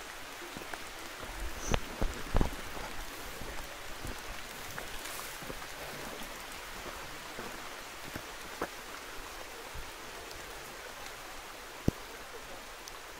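Light rain: a steady hiss with a few sharp ticks scattered through it, the loudest about two seconds in and near the end.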